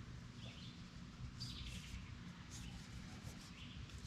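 Faint bird chirps, a few short high calls scattered over a few seconds, over a low steady background noise.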